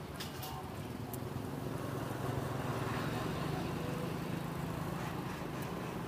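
Street traffic with a motorbike engine running close by, its low hum growing louder about two seconds in, with a few light clicks.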